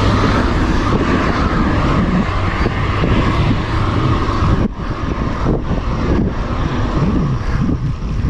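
Wind rushing over an action camera's microphone as a road bike rolls along at speed. Under it, a minivan's engine hum fades out after about four seconds.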